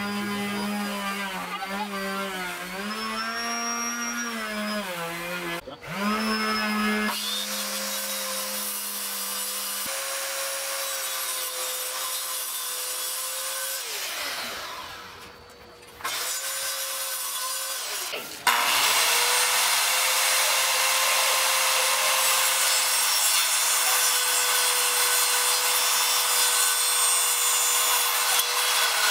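Bosch circular saw running and cutting through plywood board scraps, a steady motor whine under the hiss of the blade in the wood. It runs down and stops around the middle, starts again, and from about two-thirds of the way in makes a long, loud, steady cut.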